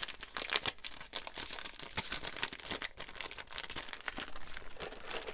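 Clear plastic cellophane packaging crinkling as it is handled, a dense run of small crackles.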